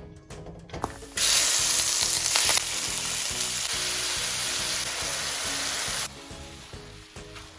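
Food sizzling in hot oil in a pan during a stir-fry. It starts abruptly about a second in, is loudest for the first second and a half, then holds steady until it cuts off about six seconds in. Background music plays throughout.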